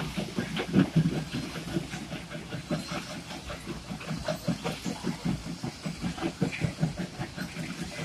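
Stone crusher plant running: a dense, irregular clatter of stone being broken and carried on the conveyors, several knocks a second over a steady low machine rumble.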